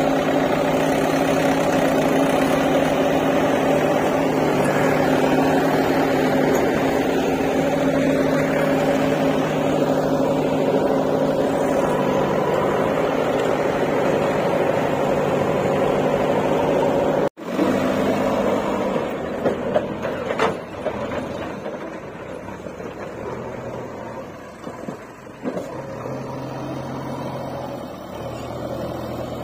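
Diesel engines of a JCB backhoe loader and a Mahindra tractor running steadily. About seventeen seconds in the sound breaks off abruptly and comes back quieter, the engines still running, with a few sharp knocks.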